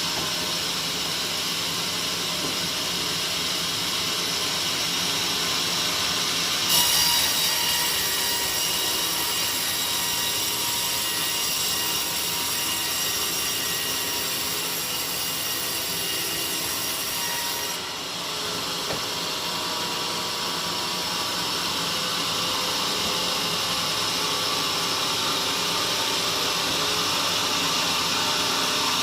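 Sawmill saw running steadily, its blade cutting through a buried teak log; the cut sounds brighter and harsher from about seven seconds in until about eighteen seconds.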